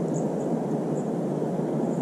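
Steady rushing outdoor noise, low and even, with a few faint, short high chirps.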